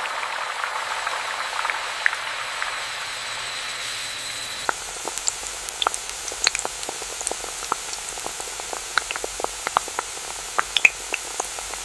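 Tortilla chips frying in hot oil: a steady hiss, then, about five seconds in, a quieter hiss scattered with sharp, irregular crackles and pops.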